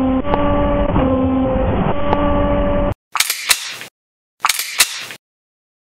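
Hydraulic dock leveler with telescopic lip: a steady pump-motor hum whose tones shift in pitch now and then, cutting off suddenly about three seconds in, followed by two short bursts of mechanical clanking with sharp clicks.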